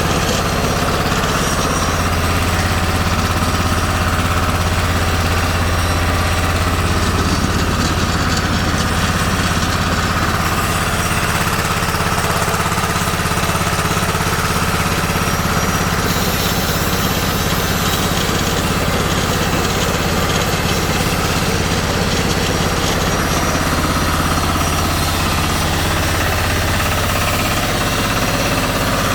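Vertical flat-die pellet mill running: a steady, loud mechanical drone with a constant low hum that does not change.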